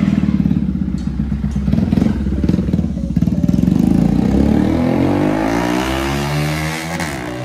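Bajaj Pulsar NS200's single-cylinder engine through a loud aftermarket Akrapovic exhaust, running at low revs with a pulsing beat, then pulling away with the revs rising steadily from about halfway and fading a little near the end as the bike rides off.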